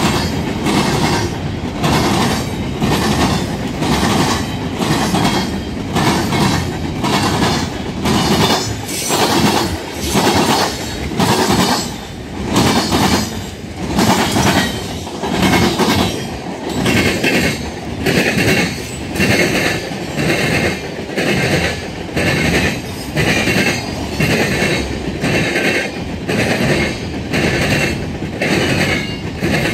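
Freight train cars rolling past close by, their wheels clacking over the rail joints in a steady rhythm of about one beat a second.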